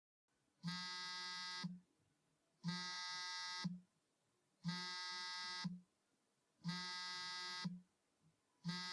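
Vibration-alert buzzing sound effect: a pitched electric buzz about a second long, repeated about every two seconds, four times, with a fifth starting near the end.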